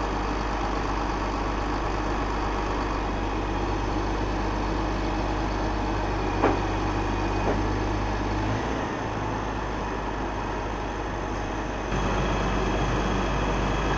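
Cat Challenger MT765C tractor's diesel engine running steadily, easing off a little a bit past halfway and picking up again sharply near the end. A brief knock sounds about halfway through.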